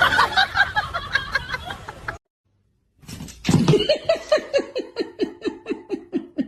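A person laughing in two bouts separated by a brief silence. The second is a long run of rhythmic 'ha-ha-ha' pulses, about four a second, that tails off near the end.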